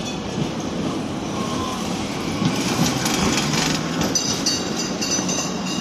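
Articulated low-floor tram passing close by, its wheels rumbling steadily on street-running rails, with a high-pitched wheel squeal setting in about four seconds in.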